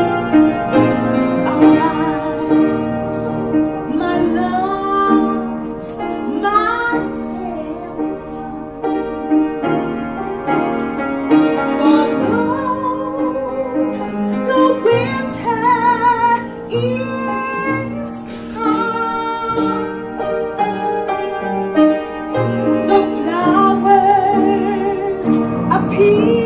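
A woman singing solo over piano accompaniment, her voice wavering with vibrato and sliding between notes.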